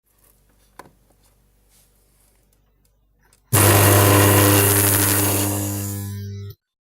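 Microwave-oven transformer with a two-turn heavy-cable secondary switched on about three and a half seconds in: a loud buzzing hum with a hiss over it, easing slightly, then cut off abruptly about three seconds later. A single click comes near the start.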